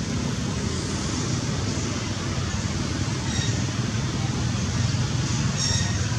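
Steady outdoor background rumble and hiss, with two brief faint high chirps about three and a half and five and a half seconds in.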